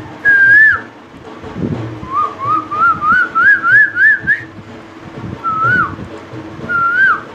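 A man whistling an imitation of an Asian koel's call: a held note that drops off, then a run of about nine short rising-and-falling notes that climb higher, then two more single notes near the end.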